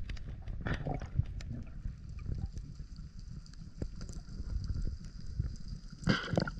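Underwater ambience heard through a camera housing: a continuous muffled low rumble with scattered sharp clicks, and a brief louder rush of noise near the end.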